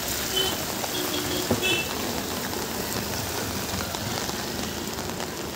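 Steady rain falling on a wet street, with vehicles passing close by through the water on the road.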